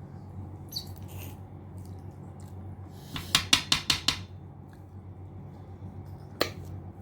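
Close-up eating sounds of mutton curry and rice: a quick run of about six sharp wet clicks about halfway through, and a single click near the end, over a low steady hum.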